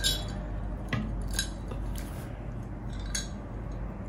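Eating utensils clinking lightly against a plate or bowl, four separate light clinks spread over a few seconds.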